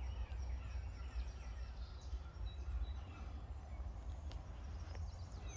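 Wild birds chirping and calling: many short whistled notes, some rising and some falling, overlapping throughout. Under them runs a steady low rumble.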